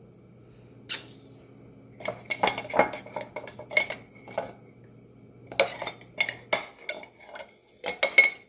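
Hard objects clinking and tapping together: one sharp clink about a second in, then two flurries of rapid clinks with a brief metallic ring. A low steady hum underneath stops about six and a half seconds in.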